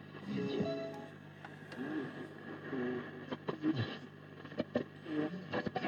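1951 Radionette Menuett valve radio's speaker playing faint broadcast sound over a steady hum, with scattered clicks. The set is picking up a station.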